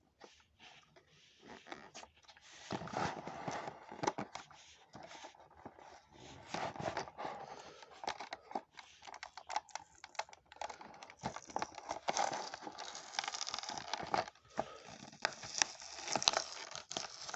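Hands tearing open a toy-car five-pack's cardboard-and-plastic blister packaging. The cardboard rips and the plastic crinkles, with irregular clicks and crackles that grow busier after the first couple of seconds.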